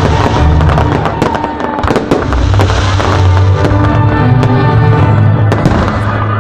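Fireworks going off in quick, irregular bangs and crackles, mixed with music that has a heavy, steady bass.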